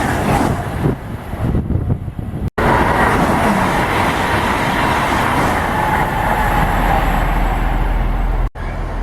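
Train running through the station, a loud steady rumble with a faint whine, cut off abruptly twice where the recording is edited.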